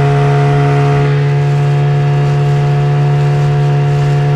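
Yamaha outboard motor running steadily under throttle, pushing an inflatable boat. It runs evenly, as it should, with no stumbling or change in speed.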